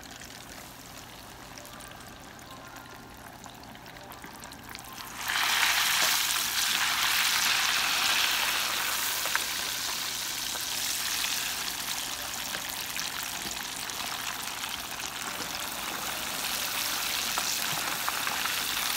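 Breaded tilapia strips deep-frying in hot oil in a small electric Fry Daddy deep fryer: a steady, quieter bubbling hiss, then about five seconds in the sizzle jumps up sharply and stays loud, easing slightly.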